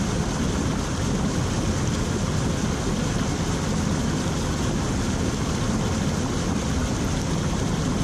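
Steady rush of a small stream spilling over rocks into a pool.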